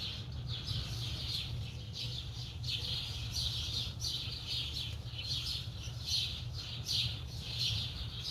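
Wild birds chirping and singing repeatedly in quick succession, over a steady low hum.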